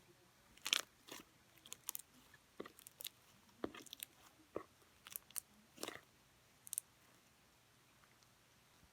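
Slime being squeezed and poked, giving a run of short, irregular wet crackles and pops that stop about two-thirds of the way through.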